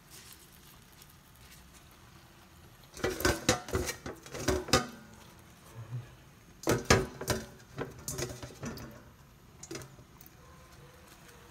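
Stainless steel bowls clinking and knocking in three short clusters, the first about three seconds in, as sweet potato leaves are handled in them.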